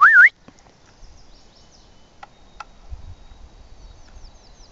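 A loud, short whistle that rises, dips and rises again, lasting about a third of a second at the very start. Then faint high chirping and two light clicks about two seconds in.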